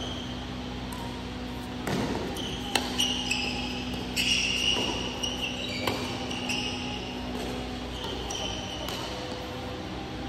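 Badminton rally: rackets striking a shuttlecock in sharp cracks, several of them between about two and six seconds in, with shoes squeaking on the court mats and a low hum underneath.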